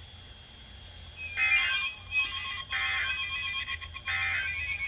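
NOAA Weather Radio broadcast sending the EAS end-of-message code: three short bursts of digital data tones, a little over a second apart, closing the severe thunderstorm warning. A steadier electronic tone runs under the bursts.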